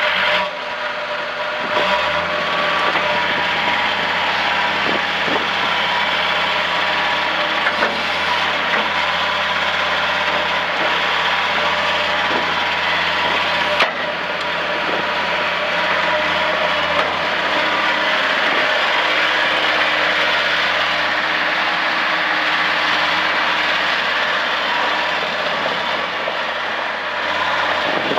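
2008 John Deere 328 skid steer's diesel engine running steadily. It picks up a little about two seconds in, and there is a single sharp click near the middle.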